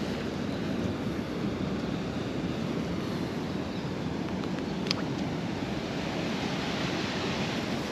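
Steady rushing of wind and nearby sea surf, with one short sharp click about five seconds in.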